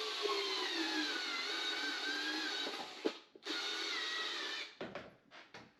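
Cordless drill driving a screw into a OneWheel GT footpad, its motor pitch sagging as the screw bites. It pauses for a moment about three seconds in, runs again, then stops with a few short trigger bursts near the end.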